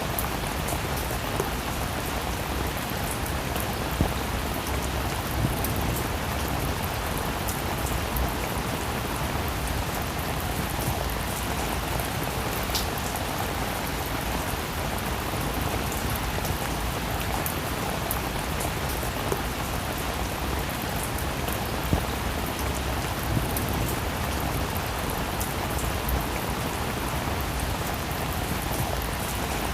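Steady rain falling, an even hiss with scattered louder drops striking a surface.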